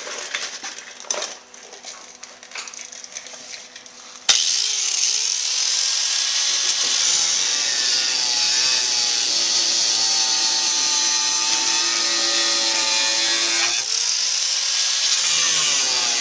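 Electric angle grinder switched on about four seconds in after some faint clicking, spinning up with a rising whine, then grinding steadily into the steel of a crash-damaged car body.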